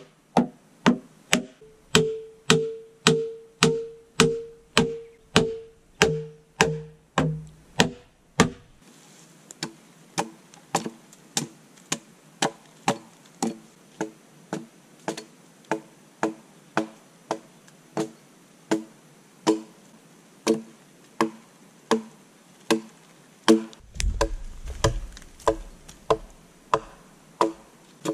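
Hammer blows on a log post-and-beam joint: a steady series of hard, ringing wooden knocks, about two a second. After about nine seconds the knocks go on at the same pace but lighter and duller, as hand tools work logs on the ground. A low thud comes near the end.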